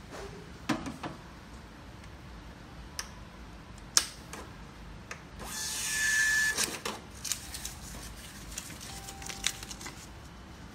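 Thermal receipt printers at work: scattered sharp clicks, then about halfway through a rasp of paper lasting about a second, with a brief high tone in it, followed by more small clicks.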